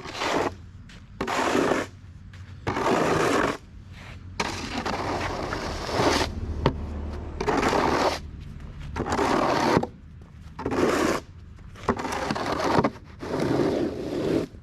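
Snow shovel scraping along pavement as it is pushed through fresh snow, in repeated strokes about a second and a half apart.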